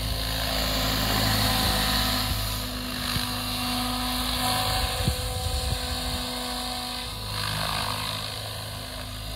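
Electric radio-controlled scale Hughes 500e helicopter on Mikado Logo 690 SX v2 mechanics with a Scorpion HK-4525 motor, hovering and flying low: steady running of the rotor blades and electric motor, swelling and easing a little in loudness.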